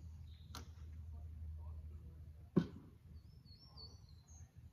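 A single sharp knock about halfway through, the loudest sound, over a steady low rumble. A few short high bird chirps follow near the end.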